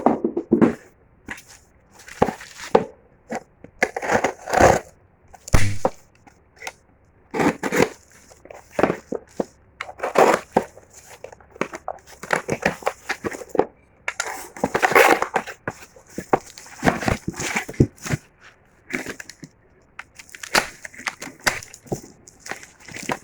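Packaging being handled and torn open: irregular crinkling, crushing and tearing of paper or plastic wrapping in quick bursts with short pauses.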